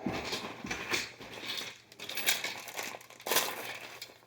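Hands handling small plastic parts, with irregular crinkling and rustling and a few sharp clicks.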